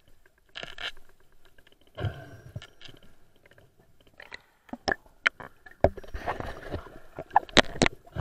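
Muffled underwater handling noise: irregular scraping and rustling with sharp clicks and knocks, coming more often in the second half and loudest near the end.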